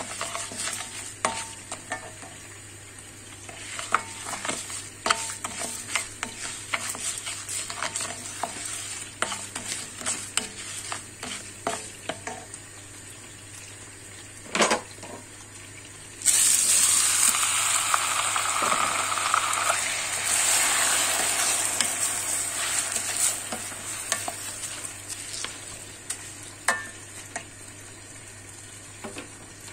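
Rice sautéing in foaming butter in a stainless steel pot, sizzling, while a wooden spoon stirs it with many small knocks and scrapes against the pot: the pilaf's rice being toasted in fat before cooking. About halfway through, a much louder hiss starts suddenly and dies down over several seconds.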